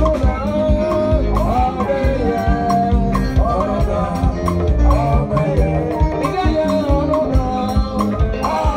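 Live band playing upbeat gospel music: drums and percussion keep a steady beat under a sung melody.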